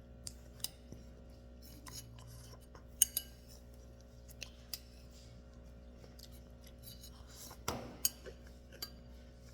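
Spoon clinking against a cereal bowl: a few light, sharp clinks spaced seconds apart, with a louder cluster near the end.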